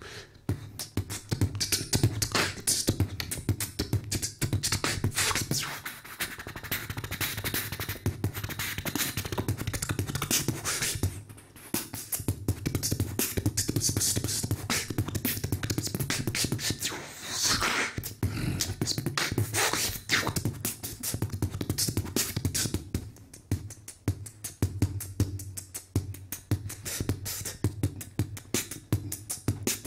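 Solo beatboxing into a handheld microphone: fast, rhythmic percussive mouth sounds over a steady low vocal hum. It breaks off briefly about eleven seconds in and turns lighter and sparser near the end.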